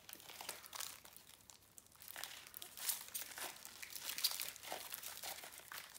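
Plastic barrier film crinkling under gloved hands, with the crackle of cohesive grip tape being pulled off its roll and wound around a wrapped tattoo machine, in irregular rustles.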